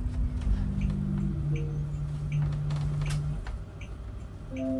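Low rumble of a moving driverless bus heard from inside its cabin, with a few steady held tones that change pitch in steps over it. The rumble drops away about three and a half seconds in.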